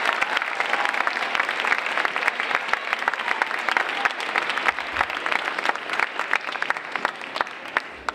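Large audience of schoolchildren applauding, a dense clatter of many hands clapping that slowly thins out and fades toward the end.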